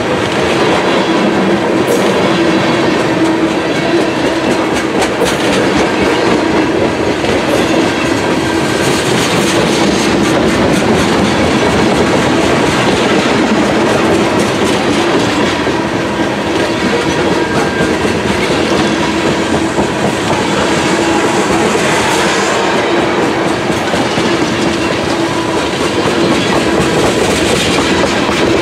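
Covered hoppers and tank cars of a freight train rolling past at close range: a steady, loud rumble of steel wheels on the rails with a clickety-clack of the wheel trucks.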